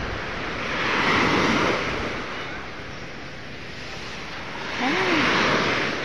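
Small waves washing in over a sandy shore. Two surges of rushing water come about four seconds apart, over a steady background of surf.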